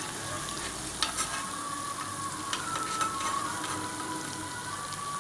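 Papdis (small rounds of maida dough) deep-frying in hot oil: a steady sizzle, with a few light clicks.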